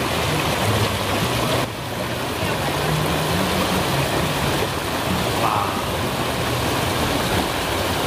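Waterfall water rushing and splashing steadily, loud and unbroken.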